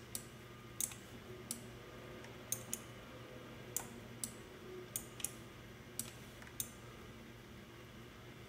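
Computer mouse clicking: about a dozen sharp single clicks at irregular intervals, some a fraction of a second apart. A faint steady low hum runs underneath.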